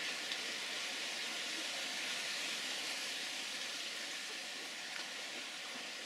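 Steady, even hiss of sea surf washing on the shore, with a few faint clicks.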